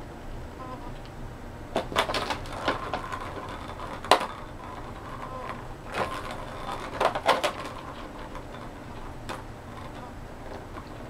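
A ball clattering and rattling around the plastic track of a circular cat track toy as a kitten bats at it. The clatter comes in bursts of sharp clicks about two, four and six to seven seconds in.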